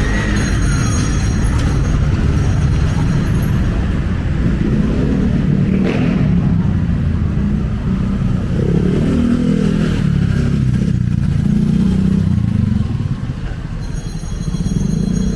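City traffic: motor vehicles and motorcycles running and passing as a continuous low rumble, with engines revving up and down in pitch midway, easing off briefly near the end.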